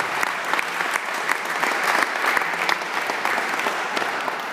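Audience applauding, many hands clapping at once, starting to die away near the end.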